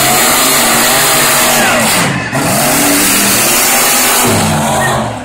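Monster truck engine revving hard at full throttle, its pitch climbing and falling over and over as the truck races. There is a brief drop in loudness about two seconds in.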